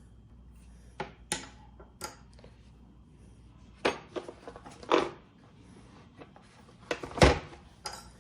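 Scattered clicks and knocks of the pieces of a PEX crimping tool kit being picked up and handled, about nine sharp taps in all, with the loudest, heavier knock about seven seconds in.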